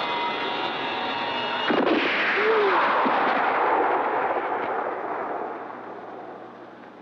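A steady sustained drone is cut about two seconds in by a single revolver shot, whose long echoing tail fades away over the next few seconds.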